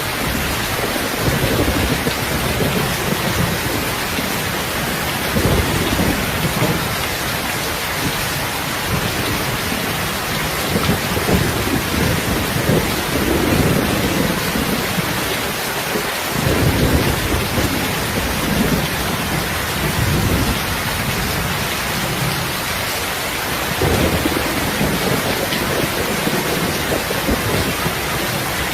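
Steady rain hiss with low rumbling swells coming and going underneath.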